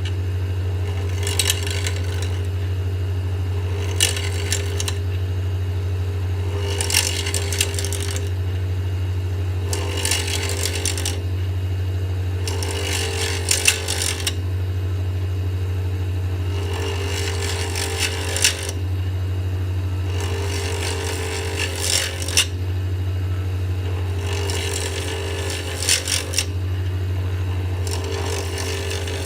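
Wood lathe motor running steadily with a constant low hum while a tool is worked against a spinning acrylic pen blank in repeated passes, each a hiss lasting a second or two, about every three seconds.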